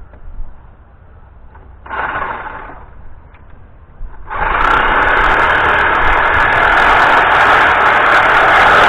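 A power tool gives a short burst about two seconds in, then starts up about four seconds in and runs steadily at full speed.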